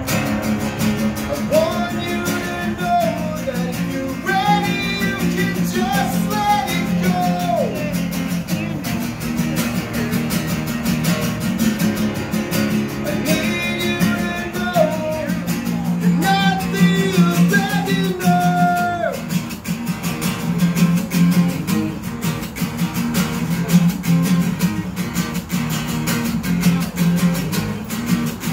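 Two acoustic guitars played together live: a steady strummed rhythm throughout, with a melody line that comes in over it twice, early in the first third and again in the middle.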